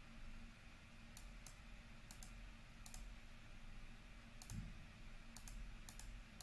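Faint, irregular clicks of a computer mouse button, about ten, several in quick pairs.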